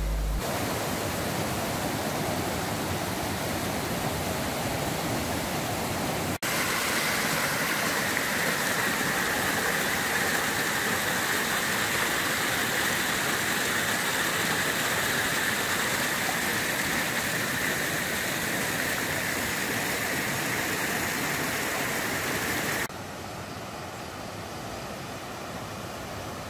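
Water rushing steadily over a wide, low waterfall where a creek pours into a river. It cuts out for an instant about six seconds in and returns a little louder, then drops suddenly to a lower level near the end.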